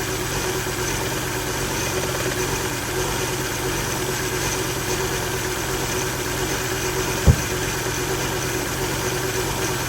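A 2000 Volvo V70's five-cylinder engine idling roughly, shaking, with a steady whine running over it. The rough idle is the sign of a failed electronic throttle module, and the whine is one the owner puts down to perhaps a rusty bearing or pump. A single short low thump comes about seven seconds in.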